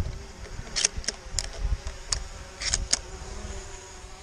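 A shotgun being handled and reloaded: a quick run of sharp metallic clicks, about six, spread between roughly one and three seconds in. Under them is a steady buzzing hum and low wind rumble on the microphone.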